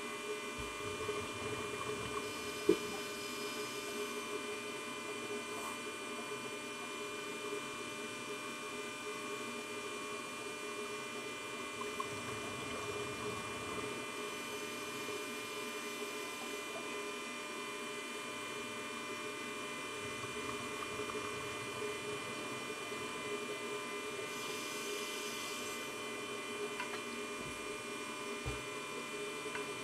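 A steady hum made of several fixed tones, with one sharp click about three seconds in and a brief hiss around twenty-five seconds in.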